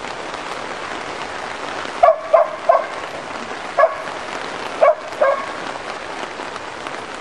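Finnish Lapphund barking in short sharp barks while chasing sheep: three quick barks, then one, then two more. A steady rushing background noise runs underneath.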